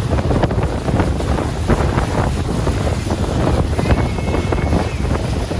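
Strong wind buffeting the microphone on a boat running over the water, a loud steady rush heavy in rumble.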